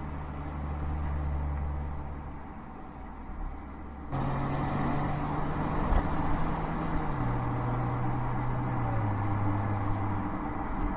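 2019 Mercedes-Benz GLE SUV driving by with a steady engine hum over tyre and road noise. About four seconds in, the sound changes abruptly to a louder, brighter road noise, and the engine note then drops in pitch twice.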